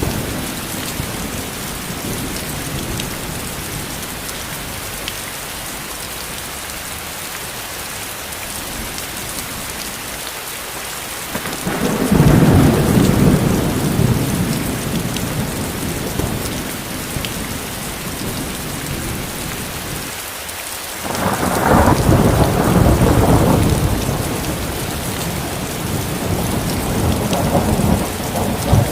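Steady rain falling, with rolling thunder: a long low rumble swells up a little under halfway through, a second follows about two-thirds in, and a third builds near the end.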